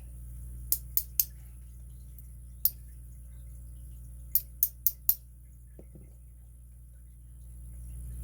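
Small metal parts of a padlock core clicking lightly as they are handled: eight short, sharp clicks, three close together about a second in, a single one, then four quick ones a little later, over a low steady hum.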